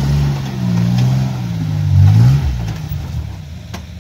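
Engine of a lifted SUV revving up and down under load as it crawls up a rock ledge, its pitch rising and falling before easing off about two and a half seconds in. A single sharp click comes near the end.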